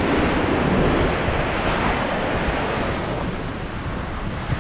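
Ocean surf and wind, with gusts buffeting the microphone: a steady rush of noise, a little stronger in the first couple of seconds and easing slightly after about three seconds.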